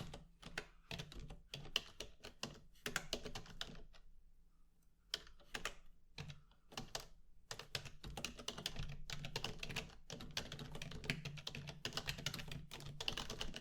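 Typing on a computer keyboard: rapid keystroke clicks in uneven runs, with a short pause about four seconds in, then denser typing toward the end.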